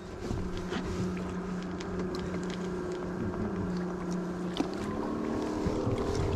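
Steady low hum of a motor aboard the boat, its pitch stepping up slightly about five seconds in, with faint clicks and a single sharp knock from fishing gear being handled.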